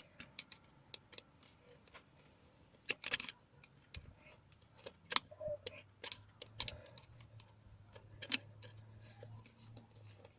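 Scattered sharp clicks and small knocks of parts being handled as the airflow sensor is plugged onto the engine's intake, with a faint steady low hum starting about halfway through.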